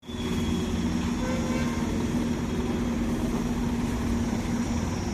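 An engine idling steadily, a constant low rumble with a steady hum.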